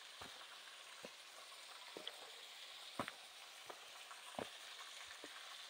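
Steady soft hiss of a small waterfall's falling water, with faint footsteps on rock about every three quarters of a second.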